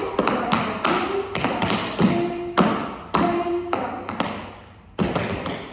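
Tap shoes striking a wooden dance floor in a quick, rhythmic tap step of sharp metallic taps. The strikes thin out briefly about four and a half seconds in, then start again.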